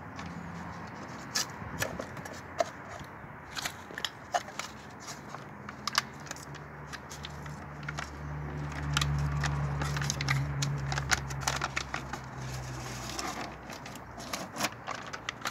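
Scissors cutting foil-faced sound-deadening sheet, then its paper backing crackling as it is peeled off, with many sharp clicks and crinkles. A low hum runs underneath from about five seconds in until about thirteen seconds.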